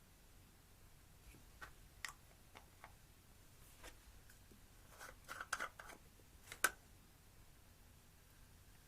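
Slime being handled and pressed, giving faint, scattered little clicks and pops. They bunch up about five seconds in, and the sharpest pop comes near the seventh second.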